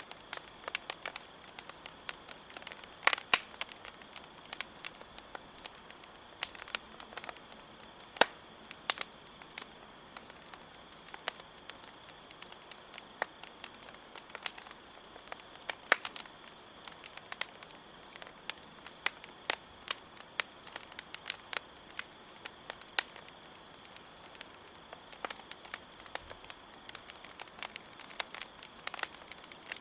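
Campfire crackling, with irregular wood pops and snaps, a few of them sharper and louder than the rest. Under it runs a steady high chirring of crickets.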